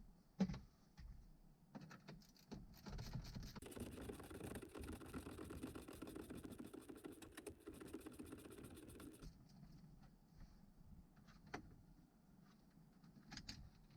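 Faint handling noises of tools on the plastic dash trim as the bezel screws are removed: scattered light clicks, with a stretch of quick rattling clicks in the middle lasting about six seconds.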